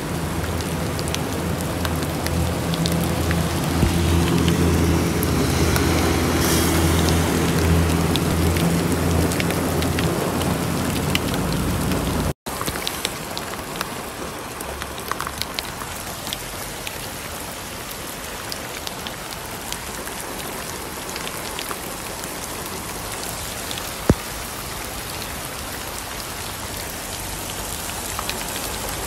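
Heavy rain falling on a wet road, a steady hiss with drops pattering. During the first part a vehicle engine's low hum runs underneath and fades out; after a break the rain alone carries on slightly quieter, with one sharp click late on.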